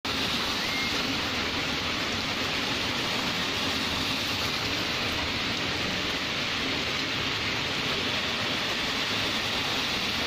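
Steady hiss of heavy rain falling, with no break or change.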